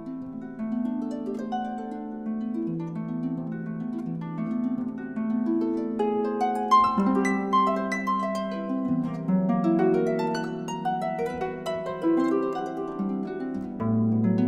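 Solo concert harp playing: a flowing line of plucked notes that ring on, growing busier and louder from about seven seconds in, with a low bass note sounding near the end.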